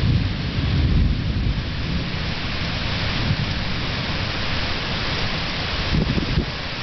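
Thunderstorm: steady rain hiss with low rumbling thunder, strongest about a second in, with further rumbles near the end.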